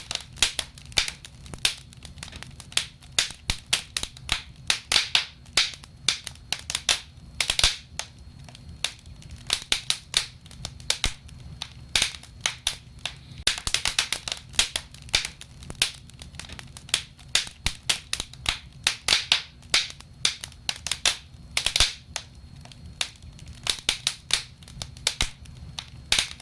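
Wood fire crackling in a fireplace as the logs burn: irregular sharp pops and snaps, some in quick clusters, over a low steady rumble.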